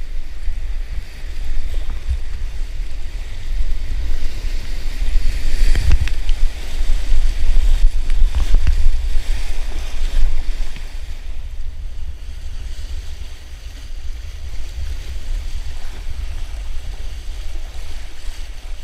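Class 2 whitewater rapids rushing and splashing around a kayak, with wind buffeting the microphone in a steady low rumble. The rush swells loudest in the middle with a couple of sharp splashes as the boat runs the waves, then eases near the end.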